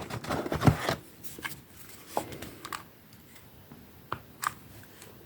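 Handling noise as items from an unboxing are moved about: a short rustle in the first second, then a few separate light clicks and taps, the two sharpest a little after the fourth second.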